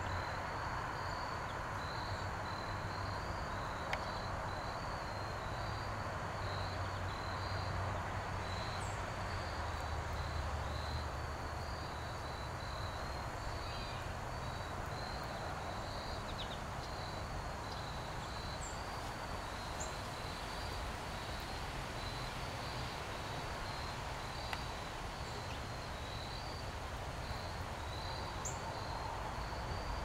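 Insects chirping steadily in short, evenly repeated high pulses over a constant outdoor background hum, with a few brief higher chirps now and then.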